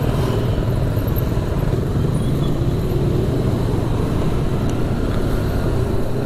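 Motorcycle engine running steadily while riding, with road and wind noise and other motorbikes close by.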